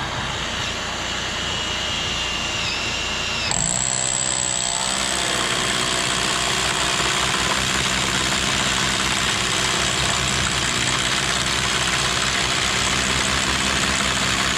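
Electric drill running continuously while boring a hole. It spins up to a higher pitch about three and a half seconds in, then runs steadily under load.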